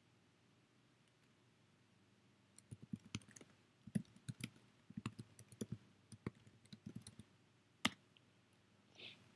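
Faint typing on a computer keyboard: a quick run of key clicks over several seconds, ending in one sharper keystroke as Return is pressed to run the command.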